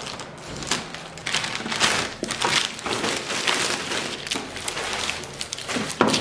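Clear plastic bag crinkling and rustling in irregular bursts as it is cut and pulled off a bamboo steamer, with a single knock near the end.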